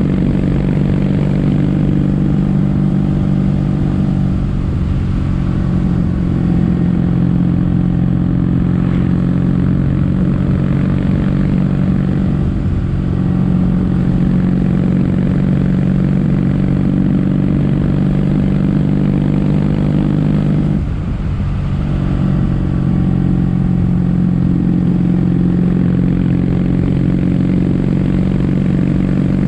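Kawasaki W800 air-cooled parallel-twin engine running under way at steady revs through Yamato stainless-steel Cabton-style silencers, in their standard setting. The note changes slightly a couple of times and dips briefly about two-thirds of the way through as the throttle eases, then picks up again.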